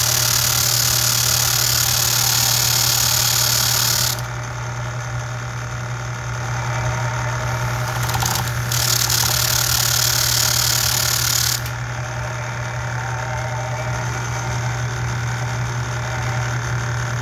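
Motor-driven sanding drum running with a steady hum while a copper rivet head, spun in a cordless drill, is sanded against it to taper the back of the head. Loud sanding hiss until about four seconds in, then softer, with a second spell of sanding hiss from about nine to eleven and a half seconds.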